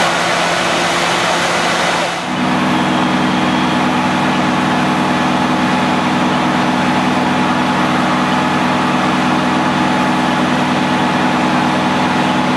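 Fire truck engine running steadily, a constant multi-pitched drone. It takes over suddenly about two seconds in from a rushing, hissing noise.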